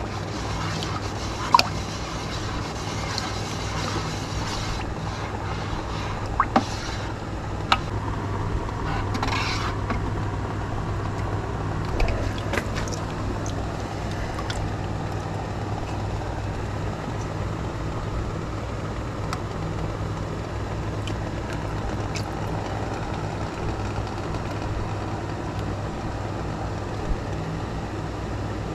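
A steady low machine hum, with a few sharp clinks and knocks of a ladle against a plastic bucket and a glass measuring cup as liquid plastisol is scooped.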